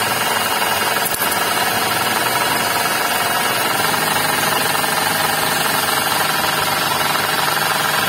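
Suzuki Ignis engine running with a steady, rough, snoring-like rattle from its V-belt drive. The noise keeps pace with engine speed and comes from a worn bearing, which the mechanic traces to the V-belt tensioner pulley.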